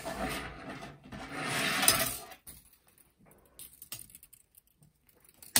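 Thick copper wire scraping and rustling as it is wound into a long coil and slid across a wooden tabletop, for about two seconds, then faint clicks of wire on wire as the winding goes on.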